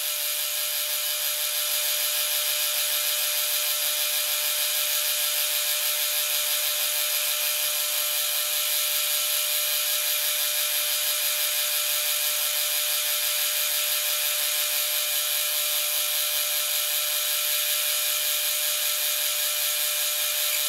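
Metal lathe running while a bar held between centres is turned down with the tool hand-fed: a steady mechanical whir of many even tones from the lathe's gears and drive.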